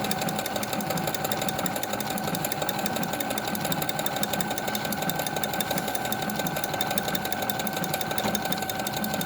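Brother FS101 sewing machine running steadily as it sews a decorative embroidery stitch, a constant motor whine over rapid, even needle strokes.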